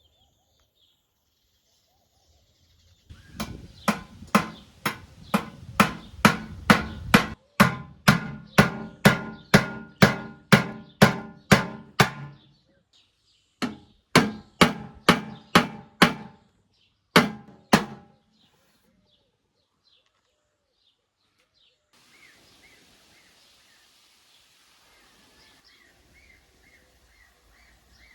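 A run of sharp, ringing knocks, about two a second, like something being struck or pounded over and over; it pauses briefly twice and stops about two-thirds of the way in, after which faint birdsong is heard.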